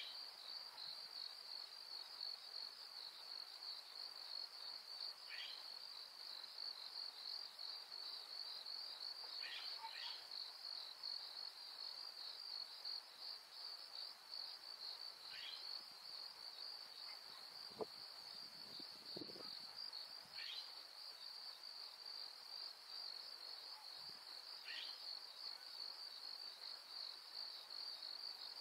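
A steady, high insect chorus of crickets trilling without a break. A bird's short falling call repeats about every five seconds, and there is one sharp click just past the middle.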